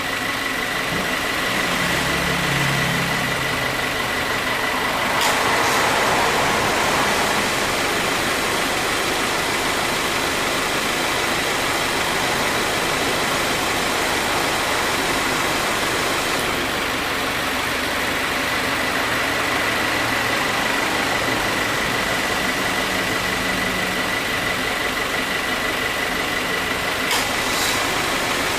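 2018 Subaru WRX running with its air-conditioning compressor cycling: a sharp click and a brief burst of abnormal noise about five seconds in as the compressor engages, and another click near the end, over steady engine running and a steady high whine. The noise at compressor start-up is taken as a sign of light compressor wear.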